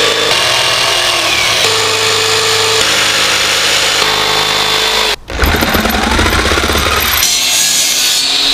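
Corded electric jigsaw cutting plywood, heard in several short edited stretches. The sound breaks off for an instant about five seconds in, and near the end a miter saw is running.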